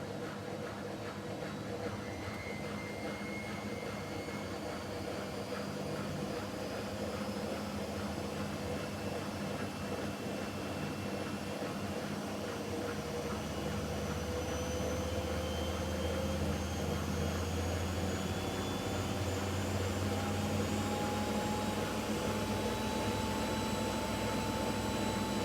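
Miele W5801 WPS washing machine spinning up, its motor whine slowly rising in pitch and the running noise growing louder: the final spin of the cycle.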